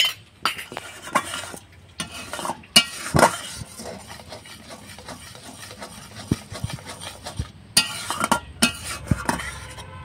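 A spoon stirring and scraping in a pan of boiling milk with powdered milk just poured in, with irregular clinks and knocks against the pan.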